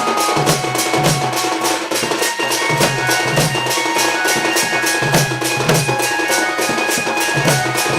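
Folk dance music: fast, steady drumming at about six strokes a second over deeper drum beats, with a high melody of held notes above it.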